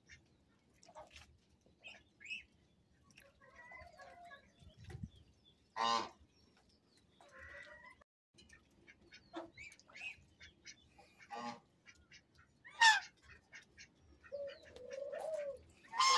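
Domestic ducks and geese calling now and then, in a few short calls. The loudest call comes about 13 seconds in, and a longer, lower call follows just before the end.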